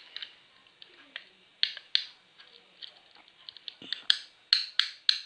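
Fidget cube being worked by hand: a run of sharp plastic clicks from its buttons and switches. They come sparse and light at first, then louder and quicker, about three a second, in the last second or so.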